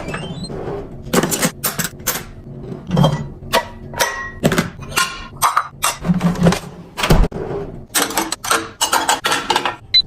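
Household items and containers being handled and set down on shelves: a quick, irregular run of clicks and knocks.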